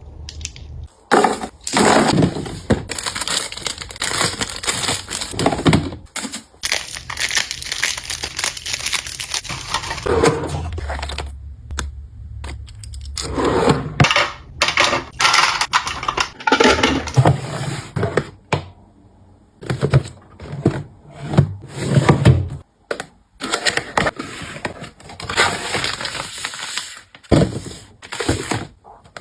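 Close, irregular handling noise of toiletry products and packaging: clicks, knocks and crackling of plastic, in uneven bursts with short pauses between.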